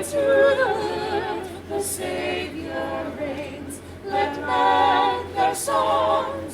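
A choir singing a cappella, several voices in harmony with vibrato, in phrases broken by short pauses for breath.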